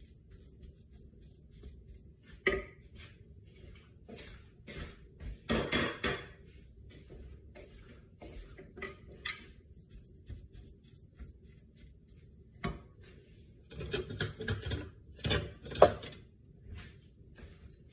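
Wooden spoon stirring and scraping grated zucchini in a frying pan, with scattered knocks of the spoon against the pan. There are two busier spells of stirring, about six seconds in and again around fourteen to sixteen seconds.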